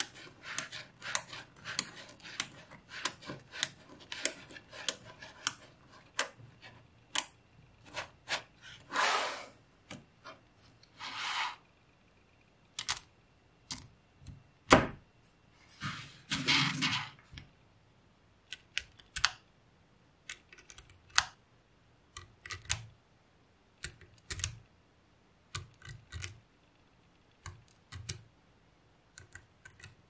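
Small magnetic balls clicking sharply as they snap together and are pulled apart, rapid clicks at first and more spaced out later. A few short swishes come in between.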